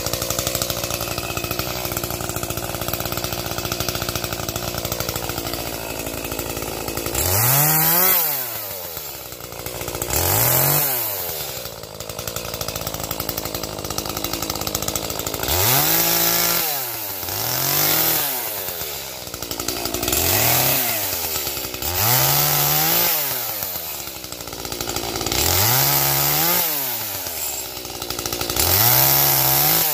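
Two-stroke gas chainsaw cutting firewood. It runs at a steady speed for several seconds, then is revved up and let back down about eight times, each rise and fall lasting two to three seconds.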